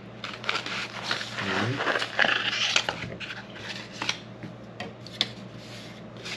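Carbon fiber vinyl wrap being handled and cut to size: a run of light clicks and scrapes, with a short squeak about a second and a half in, over a steady low hum.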